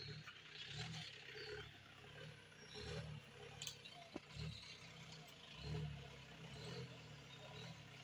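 Mahindra jeep engine running faintly in low gear as it crawls up a rough dirt trail. The low drone rises and falls with the throttle, with a few knocks and birds chirping over it.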